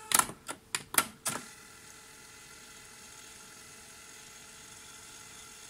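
Tascam 424 Mk II cassette transport: about five sharp clicks and clunks in the first second and a half as its keys are pressed and the mechanism changes mode, then a faint steady whir as the tape rewinds.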